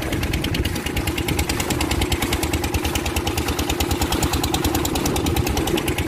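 A small fishing boat's motor running steadily, with a rapid, even pulsing.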